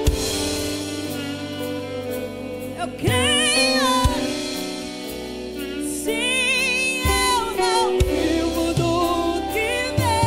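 Live gospel worship music: a female voice sings long held notes with wide vibrato in a few phrases over sustained keyboard chords, with occasional drum hits.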